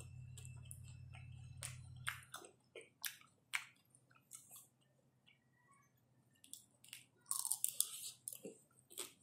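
Close-up biting and chewing of a chocolate-coated ice cream bar: scattered sharp crunches, with a dense burst of crackly crunching about seven seconds in and one more near the end. A low hum cuts off about two seconds in.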